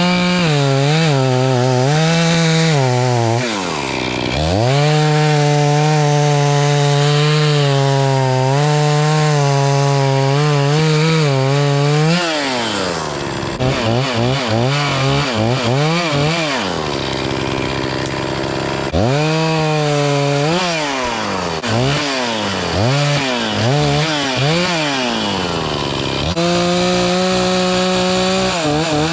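Gas chainsaw cutting through maple wood, held at full throttle for long stretches during the first twelve seconds and again near the end. In between, it drops back and is blipped up and down in quick, repeated revs.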